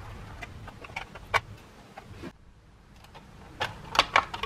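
Hard plastic parts and wiring of a Keurig coffee maker's opened housing clicking and rattling as they are handled. There are a few sharp clicks in the first half and a quick run of louder clicks near the end.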